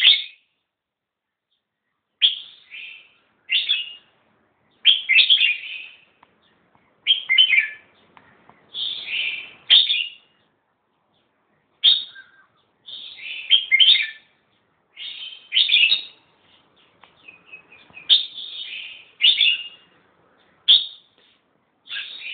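Red-whiskered bulbul singing: short, bright warbled phrases repeated every second or two, with brief pauses between them.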